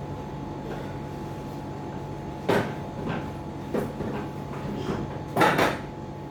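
A handful of short knocks and scrapes from kitchenware being handled, the loudest a double clatter near the end, over a steady electrical hum.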